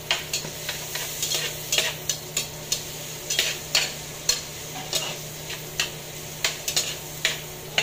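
A metal turner scrapes and clanks against a pot, about twice a second, as garlic, onion and ginger are stirred while they sauté in oil. A soft sizzle runs underneath, with a steady low hum.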